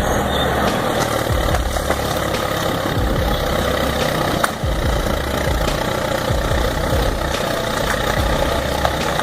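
Heavy diesel engine of a large earthmoving machine running steadily, with a deep rumble.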